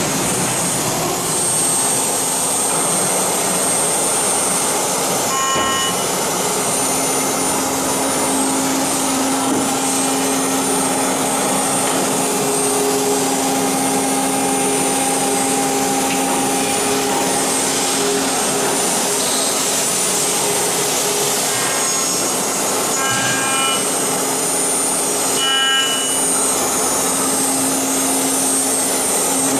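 Aluminium-profile CNC drilling and milling machine running, its spindle giving a steady whine over a constant hiss. A few brief higher-pitched squeals stand out, once about six seconds in and twice near the end.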